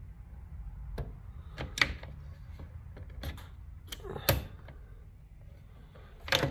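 Hand tool clicking and scraping against the metal ring clip and gear shaft of a garage door opener's worm-gear assembly, in a handful of sharp irregular clicks, the loudest pair near the end.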